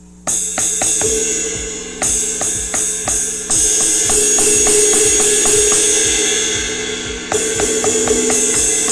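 Cymbal sounds from an AMW ED3 electronic drum kit, played in several quick runs of hits that ring on bright and sustained between the strikes. The cymbals now give a proper cymbal sound, the wrong sound having been cured by a factory reset of the drum module.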